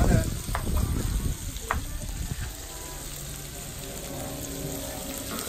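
Shrimp, squid and meat sizzling on an electric griddle as a steady hiss. A few sharp clicks and a low rumble come in the first couple of seconds, then the sizzle goes on more quietly.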